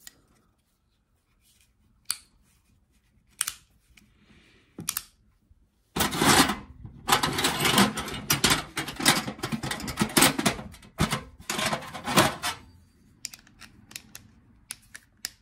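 Old unmarked ratcheting wrench, its pawl clicking rapidly as it is worked back and forth in a long run of metallic clicks, with a few scattered clicks before and after.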